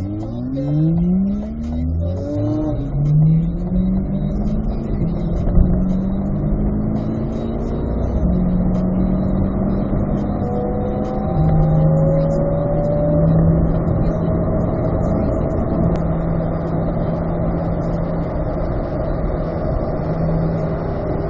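Sports car engine accelerating hard, with the revs climbing and dropping back through several quick upshifts in the first few seconds. It then settles into a steady drone, stepping down a little once about halfway through.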